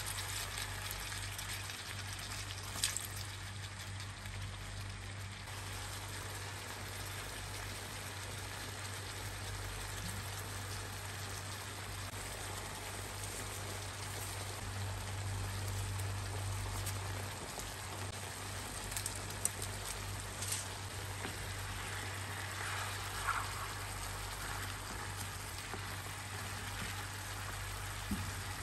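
Chicken pieces sizzling and simmering in soy sauce in a non-stick frying pan, a steady crackling hiss, with a few light taps of a spatula on the pan.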